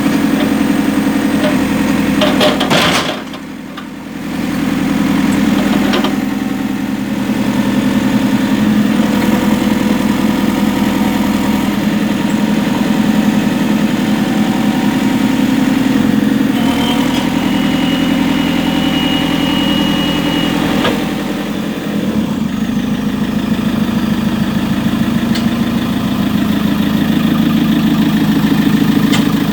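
JCB 3CX backhoe loader's four-cylinder diesel engine running steadily near idle. Its loudness dips briefly about three seconds in, and a thin high whine sounds for a few seconds midway.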